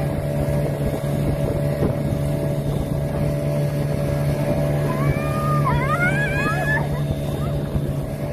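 Jet ski engine running with a steady drone as it tows a banana boat, heard from the boat over the rush of water.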